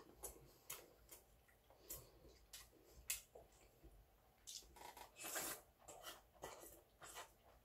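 Faint eating sounds from a bowl of seonji-guk (ox-blood soup): scattered light clicks of chopsticks against the bowl and mouth sounds of eating, with a longer, louder mouth sound about five seconds in.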